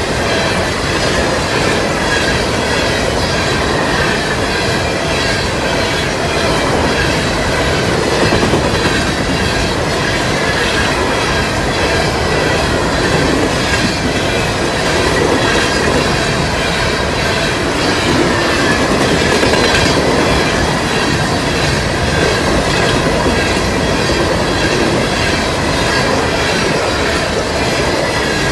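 Cars of a BNSF coal train rolling past, a steady loud rumble of steel wheels on rail with a thin high squeal from the wheels.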